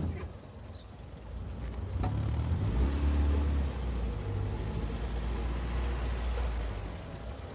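A heavy van's engine running close by: a deep, steady rumble that swells about two seconds in and eases slightly near the end, typical of a security van drawing up and idling.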